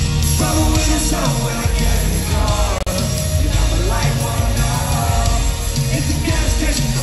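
Live rock band playing at full volume through a concert PA, with a heavy low end under electric guitar, heard from within the crowd.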